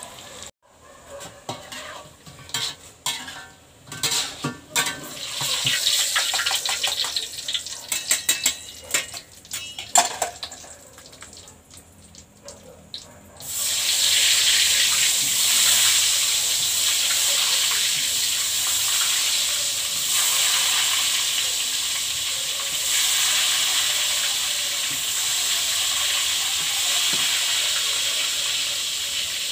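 Hot cooking oil sizzling in a wok. For the first dozen seconds it comes as irregular crackles and spatter with scrapes of a metal spatula. About 13 seconds in it changes abruptly to a steady, louder hiss.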